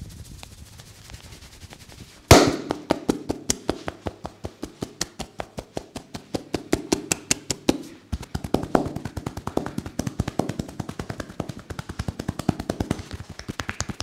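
Rapid percussive head-massage strokes: the barber's hands slap and tap on a man's scalp in a fast, even rhythm of about six or seven strikes a second. It starts suddenly about two seconds in after soft rubbing of the hair, pauses briefly past the middle, then carries on.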